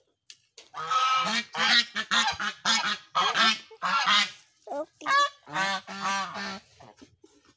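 A flock of white domestic geese honking loudly in a rapid, overlapping run of calls. After a brief break around four seconds in, a second run of honks follows.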